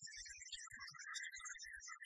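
Faint Chinese Yue opera accompaniment music.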